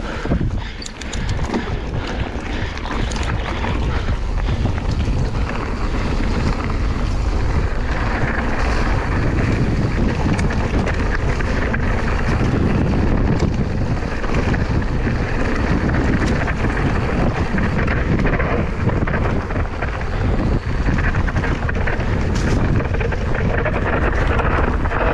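Wind buffeting an action camera's microphone while riding a Scott Spark RC mountain bike down a trail, a loud steady rush with a few sharp rattles in the first couple of seconds.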